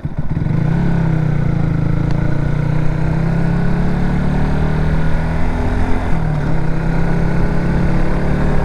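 Yamaha MT-125's single-cylinder engine through a Scorpion Red Power exhaust, picking up revs as the bike pulls away from low speed, then holding a steady note with a brief dip in revs about six seconds in.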